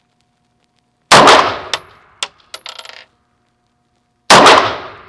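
Star BM 9mm pistol fired twice, about three seconds apart, each shot sharp and loud with a short echoing tail. Small metallic clinks follow the first shot, the ejected brass casings landing.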